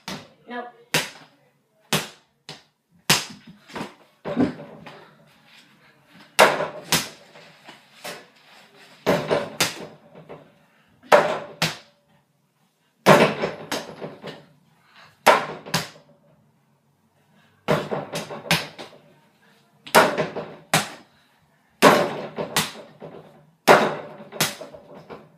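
A mini basketball thudding against a mini hoop's backboard and rim and bouncing, shot after shot, in sharp thuds that often come in quick pairs every second or two.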